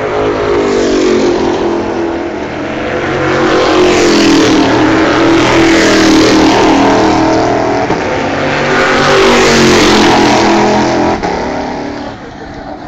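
Stock Car Brasil race cars' V8 engines at high revs passing on track, the engine note rising and falling. It swells loudest twice, in the middle and again a little later, then fades near the end.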